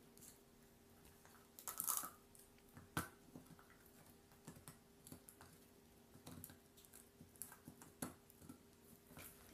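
Poodle gnawing a beef bone: faint, scattered crunches and clicks of teeth on bone, with a short burst of crunching about two seconds in and a sharp crack about a second later.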